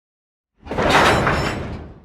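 A single rushing noise sound effect that starts suddenly about half a second in and fades away over about a second and a half.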